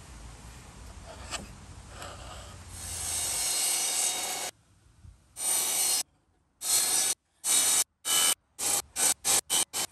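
Table saw running with a low hum, then cutting wood from about three seconds in. The rest is a series of loud bursts of sawing, each broken off by a sudden silence, the bursts getting shorter and quicker toward the end.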